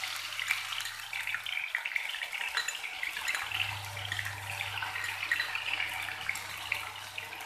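Green chillies and ginger-garlic paste frying in hot mustard oil in a pan: a steady, crackling sizzle.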